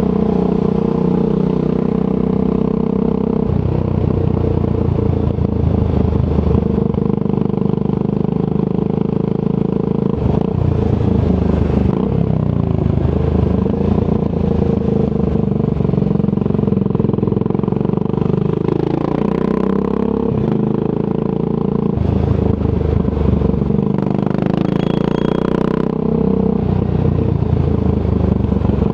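Triumph Scrambler 400 X's single-cylinder engine through a Zard aftermarket exhaust, running on the move. Its note drops and picks up again several times as the throttle and gears change.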